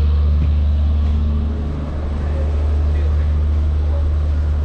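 Steady low engine drone with a constant hum from the stationary passenger train idling before departure, briefly a little softer about two seconds in.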